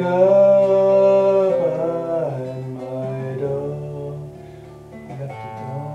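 A singing voice holds a long note over a classical guitar. The voice drops away about two seconds in, and the guitar plays on more softly.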